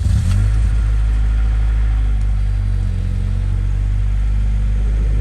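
Acura Integra's four-cylinder engine running through a newly installed Yonaka 2.5-inch catback exhaust, just fired up: a brief flare in revs as it catches, then a loud, steady idle.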